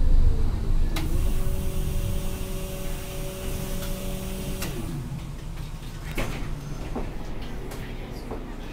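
Albatros tram running slowly: a low rumble fades, then a steady multi-tone electric whine from the drive runs for about three seconds and drops away in pitch with a click about four and a half seconds in. Scattered clicks and knocks from the car follow.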